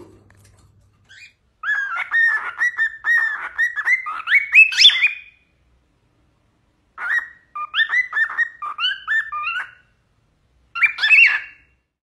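Cockatiel whistling its song: warbling phrases of quick rising and falling whistles in three bursts with pauses between them. The first and longest phrase climbs to its highest, loudest notes at its end.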